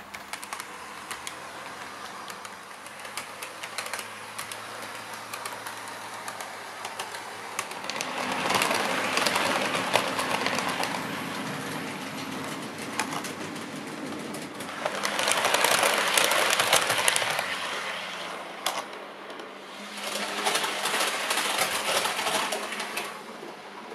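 Model trains running on a model railway track, wheels clicking quickly over the rail joints. The running noise swells three times as trains pass close by, for a few seconds each.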